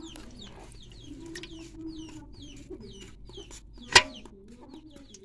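Chickens clucking amid short, high, falling chirps that repeat about three times a second. About four seconds in comes one sharp, loud splash-slap from fish thrashing in a water-filled bucket.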